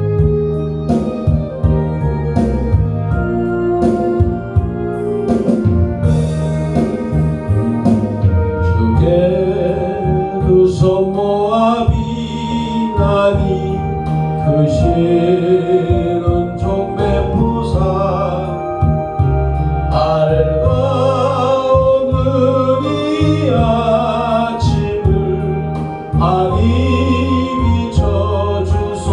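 A Christian hymn sung to organ accompaniment. The organ plays chords over a bass line alone for about the first eight seconds, then singing comes in.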